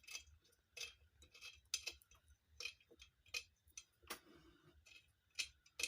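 Faint, irregular metallic clicks and clinks as a bolt and hand tools are handled on a ceiling fan's metal casing while the fan is being taken apart.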